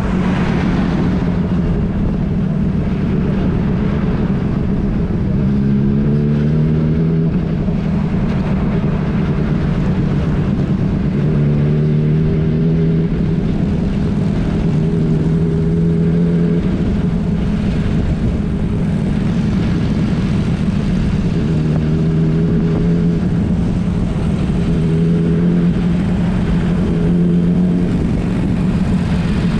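Motorcycle engine running at riding speed, its note shifting up and down in pitch several times, under a steady rush of wind and road noise.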